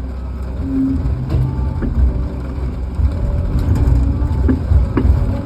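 Log loader's diesel engine running under load with a hydraulic whine coming and going, a few sharp clanks, and heavy rain falling.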